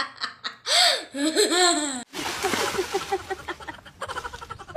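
A child laughing hard, with a sharp gasp of breath between bouts of laughter, for about two seconds; then the sound cuts abruptly to a steady hissing noise.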